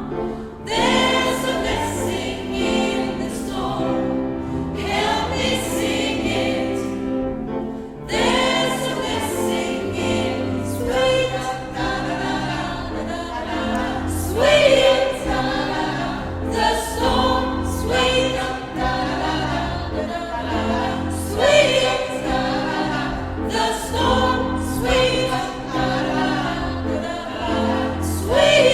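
Gospel choir singing a song in several voices, over held low accompanying notes.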